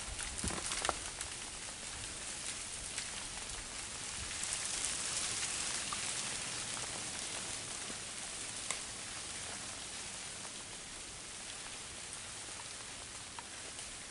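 Freezing rain falling on leaf litter and bare branches: a steady hiss scattered with small ticks and clicks. There are a few soft thumps in the first second and one sharper click about two-thirds of the way in.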